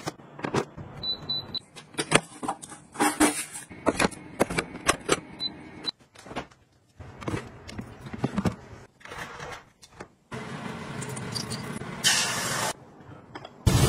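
Kitchen handling sounds: a quick run of clicks and knocks from trays and containers being moved. Near the end comes a steady hiss of beaten egg sizzling in a hot frying pan.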